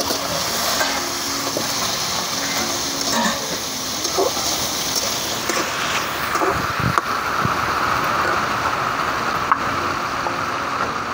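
Crab pieces sizzling as they half-fry in hot mustard oil in a metal wok, with a slotted metal spatula scraping and clicking against the pan as they are stirred. The sizzle is a steady hiss that settles into a lower, narrower hiss about halfway through.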